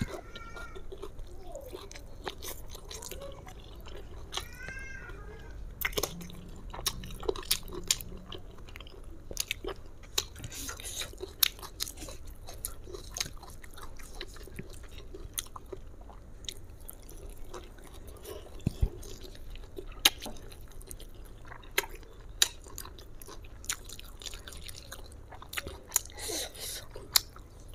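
Close-up chewing and mouth sounds of a person eating fried chicken and rice by hand, with scattered small wet clicks and light crunches.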